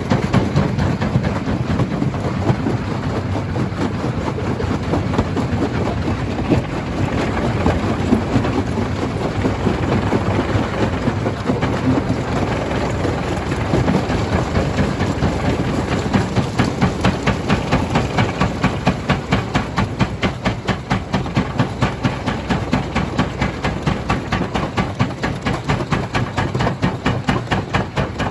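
Stone jaw crusher running and crushing rock, a continuous heavy clattering grind. About halfway through it settles into a regular pulsing of roughly three beats a second.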